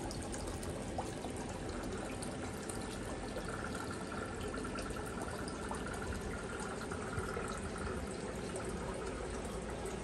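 Steady trickle of running water from a small pond's water feature.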